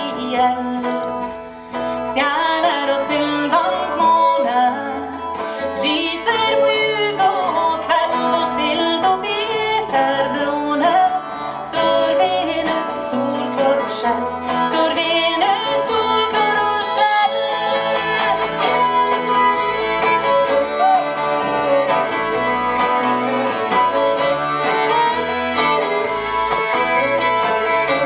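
Live acoustic folk band playing: fiddles carrying a gliding melody over strummed acoustic guitar and plucked double bass.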